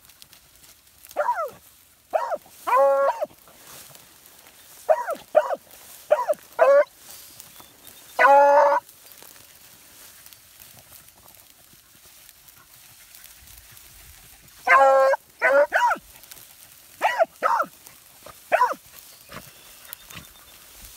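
Hounds baying while running a scent trail: a string of short barks mixed with a few longer, drawn-out bays. They come in two bunches with a pause of about six seconds between.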